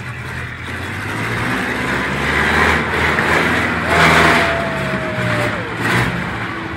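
Monster truck engine revving under load as the truck climbs onto and rolls over a crushed car, loudest about four seconds in as the tyres mount the car. A long, slightly falling tone sounds briefly over it just after the peak.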